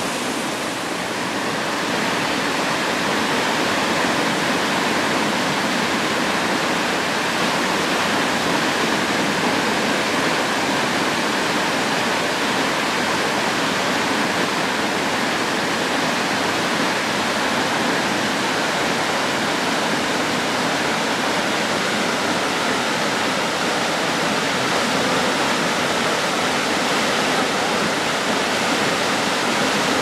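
Waterfall rushing steadily: a dense, even sound of falling and churning water with no breaks. It gets slightly louder about two seconds in.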